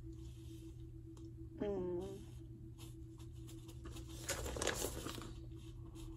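Paper rustling and crinkling as it is handled, with a few short rustles, the loudest about four to five seconds in.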